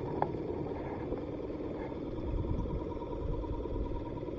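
Steady hum of a battery-powered bait-bucket aerator pump, with a low rumble swelling and fading about two to three seconds in.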